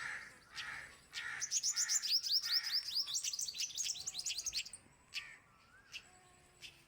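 A small bird chirping, with a fast run of high chirps, several a second, starting about a second and a half in and lasting about three seconds.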